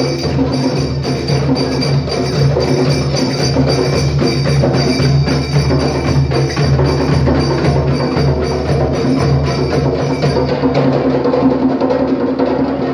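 A live group of hand drums with jingling tambourine playing a steady, unbroken Oriental belly-dance drum rhythm.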